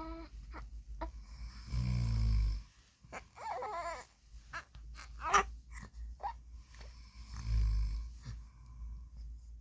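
A man snoring deeply, two long snores about six seconds apart. Between the snores, a three-month-old baby makes short cooing and squealing sounds; a sharp squeal about five seconds in is the loudest moment.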